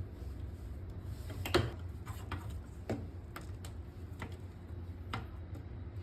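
Scattered light clicks and taps of tube fittings being handled and pushed onto the handle connector of a hydrofacial machine, the loudest about a second and a half in, over a low steady hum.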